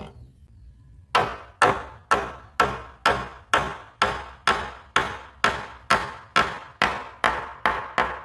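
Steady hammering on wood: about fifteen sharp blows at roughly two a second, starting about a second in.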